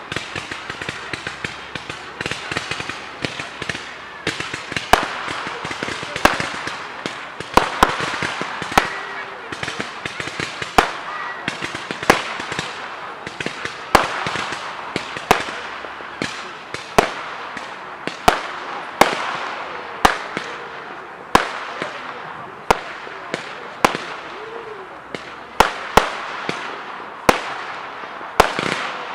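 Fireworks display: a rapid succession of sharp bangs from bursting fireworks, about one a second, over continuous crackling and fizzing. Voices are faintly audible underneath.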